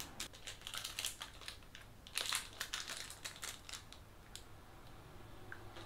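A Cadbury Roses chocolate's shiny twist wrapper crinkling as it is unwrapped by hand: a quick run of crackles for about three and a half seconds, then a faint tick or two.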